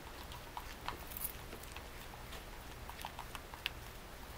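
Plastic spoon stirring a thick PVA glue and baking soda mixture in a glass bowl, with irregular light clicks and taps as the spoon knocks the glass.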